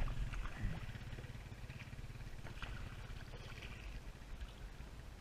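Kayak paddle strokes in still pond water: small splashes and water dripping and trickling off the blade, over a steady low rumble.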